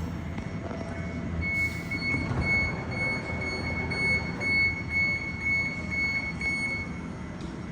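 A series of short, high electronic warning beeps, about two a second for some five seconds, over the low running hum of an NSW TrainLink D set electric train standing at the platform.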